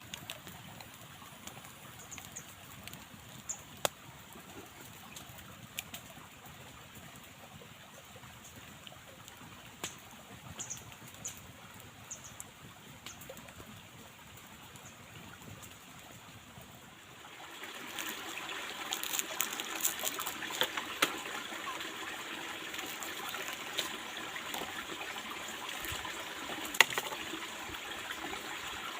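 Forest stream babbling, faint at first and growing louder about two-thirds of the way through, with scattered clicks and a few short high chirps.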